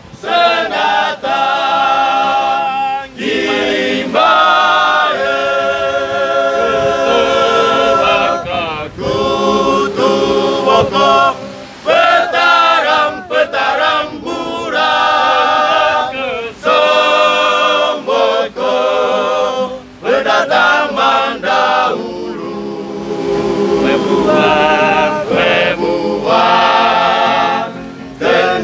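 A choir singing unaccompanied, held notes with vibrato in phrases separated by short breaths.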